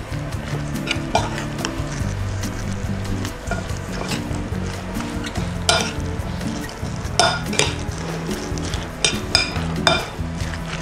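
A fork stirring and mashing a wet, chunky filling of raw minced beef, diced potato and onion in a bowl, with scattered clicks and scrapes of the fork against the bowl, several of them sharper about halfway through and near the end. Background music runs underneath.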